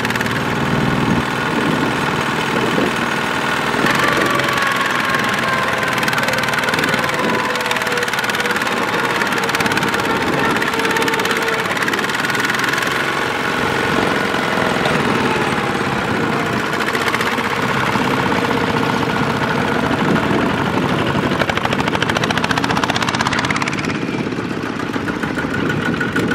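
Kubota walking tractor's single-cylinder diesel engine running steadily under load, with a knocking diesel beat, as it tows a loaded trailer through mud.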